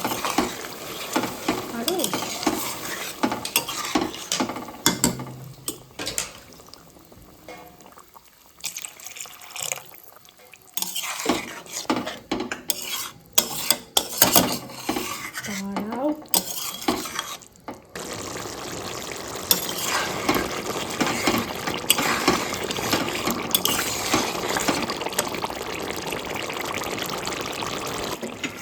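A spatula stirring and scraping chicken gizzards in a pan, with irregular clinks and scrapes against the metal. From about two-thirds through, a steadier frying sizzle takes over.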